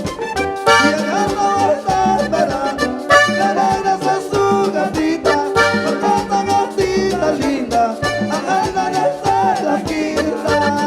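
Live band playing Panamanian típico music, an accordion carrying the melody over a steady percussion beat.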